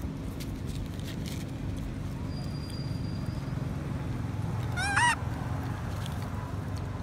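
Baby long-tailed macaque giving one short, high squeal about five seconds in, its pitch rising then falling, over steady low background noise.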